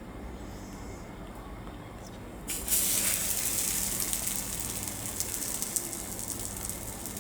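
An egg-dipped bread slice hitting hot ghee in a frying pan: a sudden loud sizzle starts about two and a half seconds in, crackling and slowly easing off.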